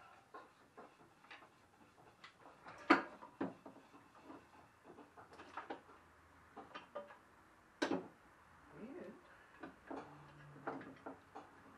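Scattered metal clicks and clanks of hand tools and engine parts being handled while a Kohler Command V-twin engine is stripped down, with two louder knocks, about three seconds in and near eight seconds.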